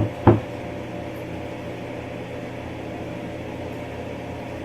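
Steady mechanical hum, like a household fan or appliance running, with two short knocks right at the start.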